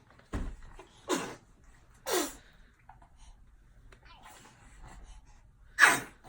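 Babies sneezing: several short, sharp sneezes, the loudest near the end. The sneezes are set off by bright sunlight let into the room, a photic sneeze reflex that the parent calls being allergic to sunlight.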